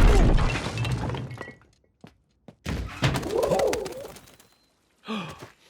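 Cartoon crash sound effects: a heavy thud with something breaking right at the start, ringing out for about a second and a half, then a second knock nearly three seconds in, followed by a short warbling coo-like call.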